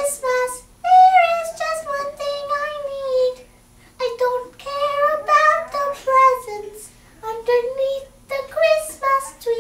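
A girl singing solo and unaccompanied, in held phrases with short breaks between them.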